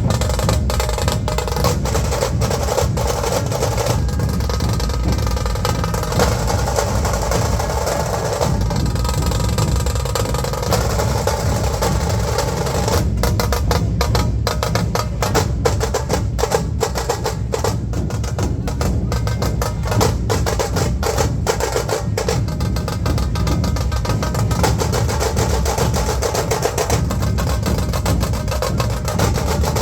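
Dhol drums beating a loud, fast rhythm with rolls, the pattern changing several times.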